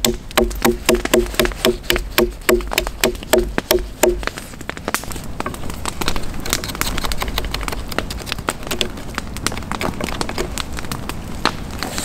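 A knife blade chopping into a thin upright wooden stake with quick strokes, about three knocks a second, for the first four seconds; then the knife shaves down the stake, with scratchy scraping and small clicks.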